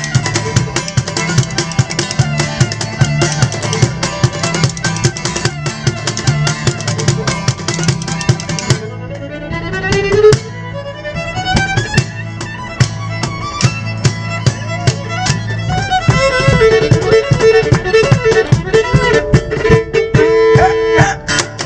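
Live band's instrumental break led by fiddle over strummed guitar and drums at a fast beat. About nine seconds in the full band drops back and the fiddle slides upward, then plays a running melody, and near sixteen seconds it saws rapidly on one repeated high note.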